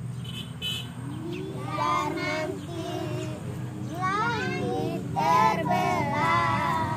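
Young children's high voices singing in short sing-song phrases, several times, over a steady low hum.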